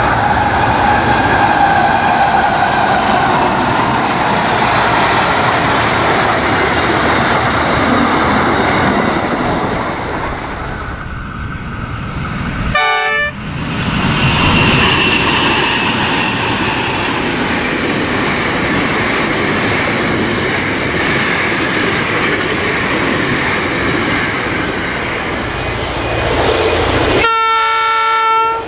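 Diesel-electric freight locomotives, Pacific National 93 class and NR class, passing one after another with their engines running and container wagons rumbling over the rails. A brief horn toot about thirteen seconds in, and a longer locomotive horn blast near the end.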